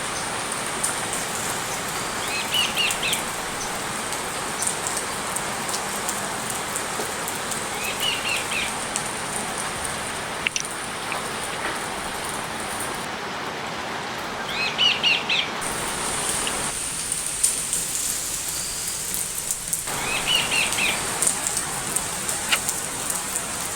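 Steady rainfall with a bird's short bursts of chirping calls, repeated four times at intervals of several seconds, and scattered sharp ticks of drops.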